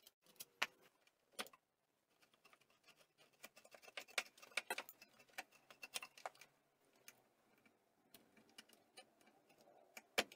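Scattered light clicks and metallic taps from a screwdriver and hands working on a moped's frame, cables and engine parts. They come thicker about four to six seconds in, with a sharper click near the end.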